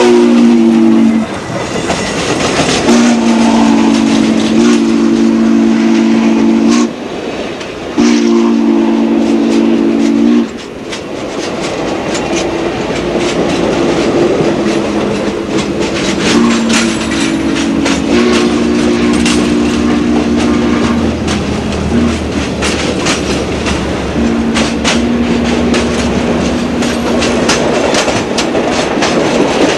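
Southern Pacific 4449's steam chime whistle blowing several long blasts, several notes sounding together, loud as the locomotive passes, then fainter as it moves away. Under it the passenger cars roll past at speed with a steady clickety-clack of wheels over rail joints.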